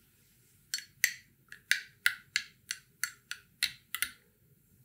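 A small metal spoon stirring espresso in a glass, clinking against the glass wall about a dozen times, roughly three clinks a second, starting under a second in.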